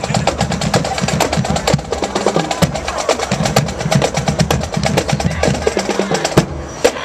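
Marching band drumline playing a cadence: rapid snare drum strokes and rolls over deeper drums. It eases off a little near the end.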